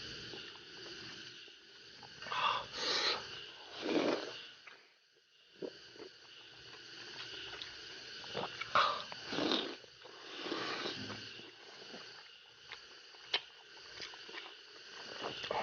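Eating sounds: a few short bursts of chewing and slurping as soft steamed green-bean buns soaked in a garlic-vinegar dipping sauce are eaten, with small clicks between them.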